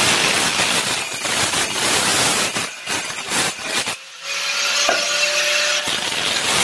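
Handheld electric angle grinder cutting a curve into a marble slab: a harsh, gritty grinding noise that dips briefly twice near the middle, with a steady motor whine showing for a second or so after the second dip before the full cutting noise returns.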